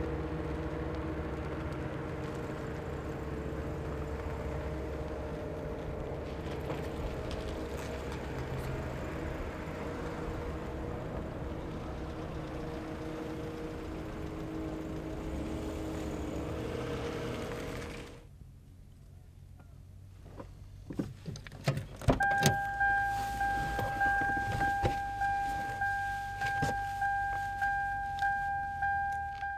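Cars driving past on a road: steady engine and tyre noise with a few low hums. It cuts off about two-thirds of the way through. Then, inside a car, a few clicks, and a car's warning chime starts and dings over and over, a little faster than once a second, as with a door left open.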